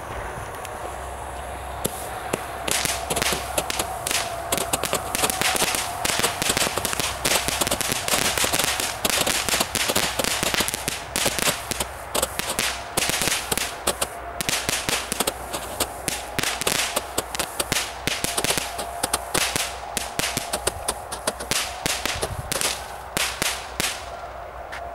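Comet Power Hammer 100-shot roman candle battery firing. The fuse burns for about two seconds, then a fast, dense run of launch shots mixed with crackling pops goes on until near the end.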